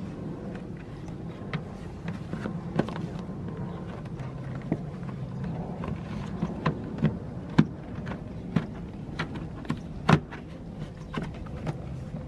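Plastic fog light surround trim on a Ford Focus ST225 front bumper being handled and pushed back into place: irregular sharp plastic clicks and taps, the loudest about ten seconds in, over a steady low hum.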